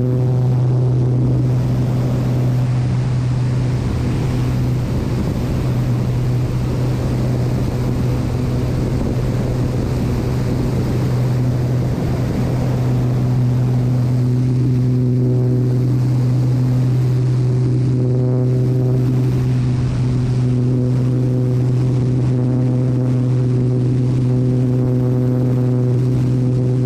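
Agricultural spray plane's engine and propeller droning steadily in flight, with air rushing over the airframe. The steady hum's upper overtones fade from about 2 to 13 seconds in and come back after that.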